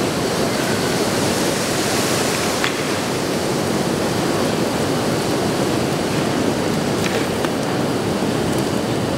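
Steady rushing roar of fire from large wall-mounted matchstick pieces burning all at once, with an occasional faint crackle.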